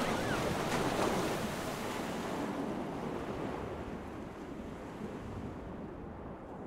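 Steady rushing of sea waves and wind, slowly fading out.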